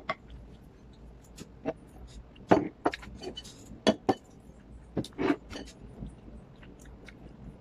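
Porcelain bowls and a plate clinking and knocking against each other and the tabletop as they are moved about, a scatter of sharp clinks about a second apart.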